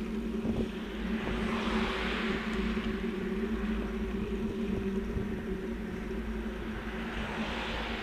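Steady road noise with a low rumble and hum, swelling twice as vehicles pass: about two seconds in and again near the end.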